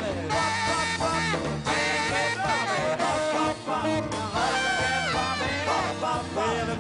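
Live boogie band playing an up-tempo number with a steady beat: saxophones play sliding phrases over keyboard, bass guitar and drums.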